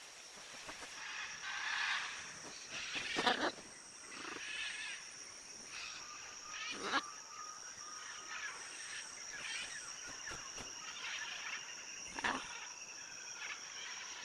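Scarlet macaws giving harsh, raucous squawks, the loudest about three, seven and twelve seconds in, over a steady high-pitched insect drone.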